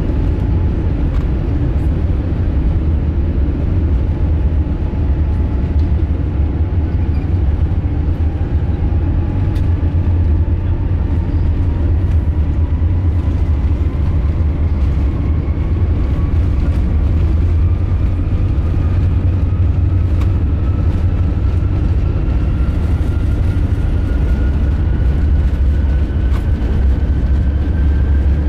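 Airbus A380 heard from inside the cabin: a loud, steady deep rumble from the Rolls-Royce Trent 900 engines, with a thin whine rising slowly in pitch.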